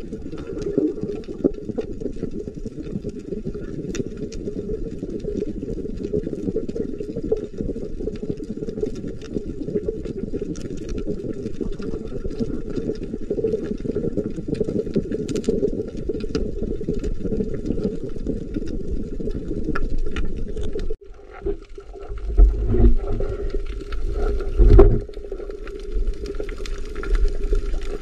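Muffled underwater noise picked up by a submerged camera: a steady low rush with scattered faint clicks. About three-quarters of the way through it cuts out for a moment and turns into low, uneven rumbling thumps.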